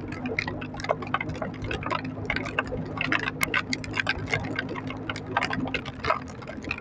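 Rain striking the microphone in quick, irregular taps, over the steady low hum of the Yuki Funrider 125 motorcycle's engine while riding.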